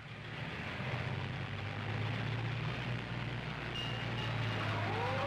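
Fire engine running with a steady low rumble, heard through the hiss of an old film soundtrack. Near the end a siren starts to wind up, rising in pitch.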